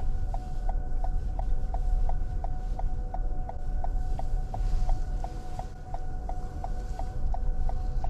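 A 2021 Toyota RAV4 Hybrid driving slowly on a snow-covered road, heard from inside the cabin as a steady low rumble. A repeated electronic beep of one pitch sounds nearly three times a second throughout.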